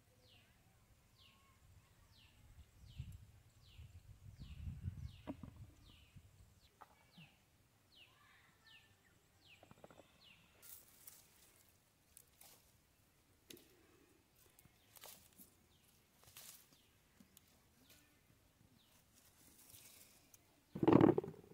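A bird repeats a short descending call about twice a second for several seconds, over a quiet outdoor background. Later come scattered rustles and light clicks of tomato plants being handled as the fruit is picked, and a brief louder sound near the end.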